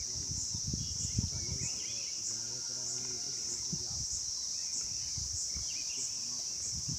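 A steady high-pitched insect drone with a faint regular pulse, carrying on without a break. Irregular low thuds and rustles sit underneath it.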